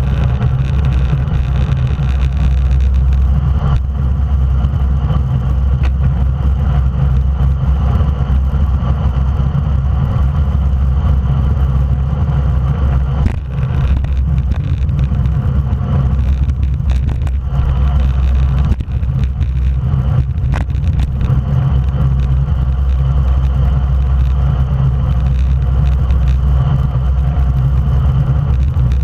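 Loud, steady wind rush on the microphone of an action camera mounted on a road racing bicycle at race speed, mixed with the rumble of tyres on the road.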